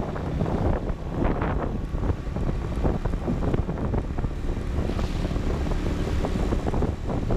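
Wind rushing and buffeting over the microphone of a moving motorcycle, with the bike's engine running steadily underneath.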